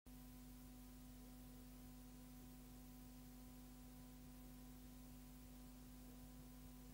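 Near silence with a faint steady hum made of a few held tones.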